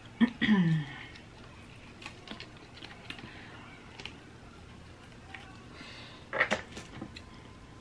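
Boiled shellfish tail shell being cracked and peeled apart by hand: scattered small crackling clicks, with a louder burst of cracks about six seconds in.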